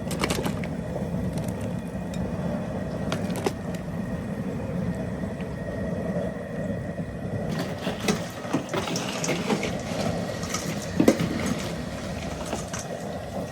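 Steady low rumble of the crawfish boil pot, with scattered knocks, clicks and rustling from about halfway through as corn and mushrooms are added to the pot.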